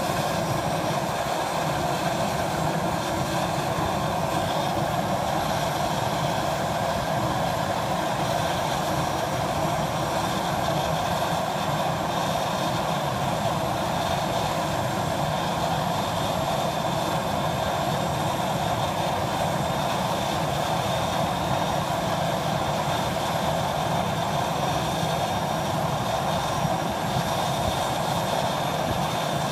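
Thrush 510G crop-duster's GE H80 turboprop idling steadily with a constant turbine whine, kept running while its hopper is loaded with seed.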